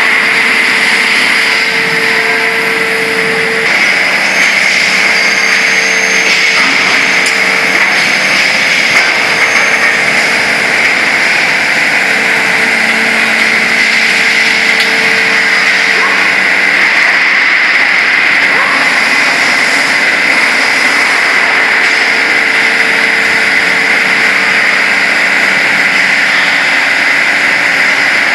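Steady factory-floor machinery noise, a constant high hum with a lower tone that comes and goes, and no separate riveting strokes standing out.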